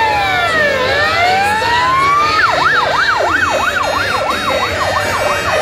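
Fire engine's electronic siren sounding: a slow wail that falls and rises again, then switches about two and a half seconds in to a fast yelp of about three sweeps a second.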